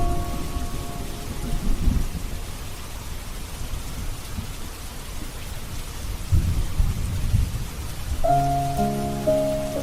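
Steady rain with low rolls of thunder, twice. Soft sustained music chords fade out about a second in and come back near the end.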